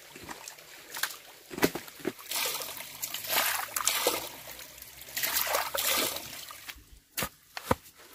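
Water splashing and sloshing in two longer spells, starting about two seconds in and again about five seconds in, with short knocks and clatters in between.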